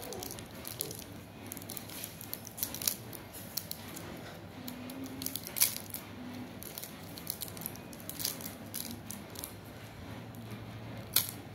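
Small clicks and soft rustles of fingers handling something small, scattered irregularly, with a sharper click about five and a half seconds in and another near the end, over a faint steady low hum.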